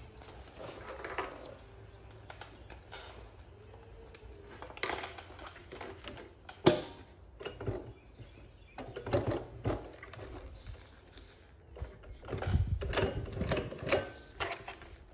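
Highlead double-needle industrial sewing machine stitching in short, stop-start runs, its needles and mechanism clattering, with taps and knocks as the material is handled. There is one sharp click about halfway through, and the busiest, loudest stitching comes near the end.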